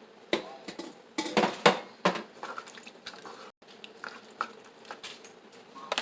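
A utensil knocking and clanking against a cooking pot: a run of sharp clanks in the first two seconds or so, then lighter scattered taps.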